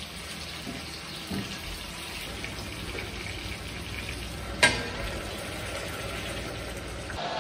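Halved plum tomatoes and garlic sizzling face down in olive oil in a frying pan, a steady hiss. About halfway through, a lid is set on the pan with a sharp clank.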